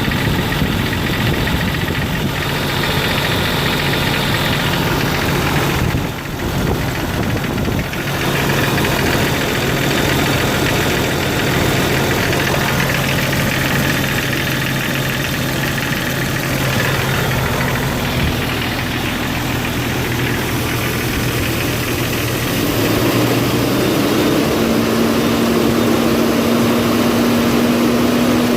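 1999 Jeep Cherokee XJ engine running with a ticking noise that the owner suspects is lifter noise. The engine note shifts up somewhat near the end.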